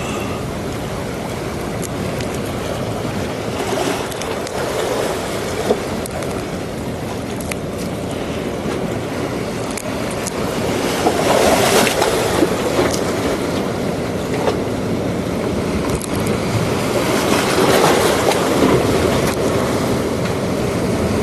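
Sea waves breaking and washing ashore in rough, windy conditions, a continuous rushing that swells louder about halfway through and again near the end. Wind buffets the microphone, and a few brief clicks come through.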